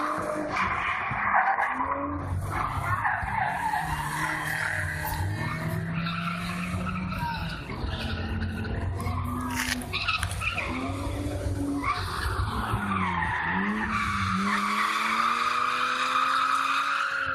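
BMW 3 Series drifting: tyres squealing almost without a break while the engine revs rise and fall several times, with the squeal strongest near the end.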